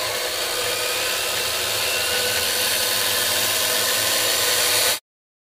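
A gear train of some two dozen small DC motors, meshed through white plastic gears and driving a small fan, runs with a dense, steady whirring whine that climbs slightly in pitch. It cuts off abruptly near the end.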